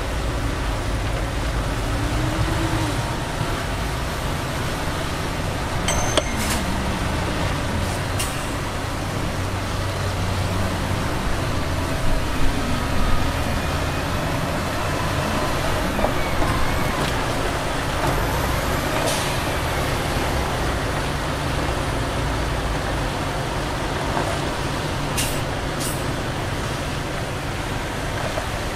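Heavy diesel earthmoving machinery, a wheel loader and dump trucks, running steadily with a low engine rumble. A few short sharp clanks or hisses stand out, around six and eight seconds in and twice near the end.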